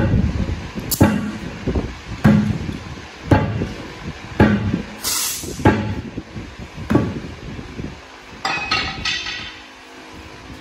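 A long steel bead-breaking bar is struck down between the bead of a large truck tire and its steel rim, giving heavy knocks about once a second, seven times. Near the end come a few ringing metallic clinks.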